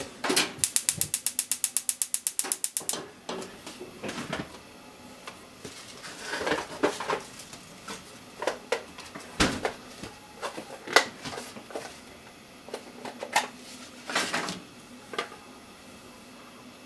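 Gas stove's spark igniter clicking rapidly, about ten clicks a second for some two seconds, as the burner is lit under a frying pan. Scattered small ticks and crackles follow.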